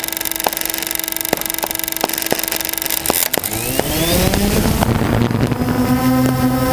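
Sharp irregular crackling ticks over a steady tone. About three seconds in, a small quadcopter drone's motors spin up in a rising whine and settle into a steady hum, climbing again near the end as it lifts off.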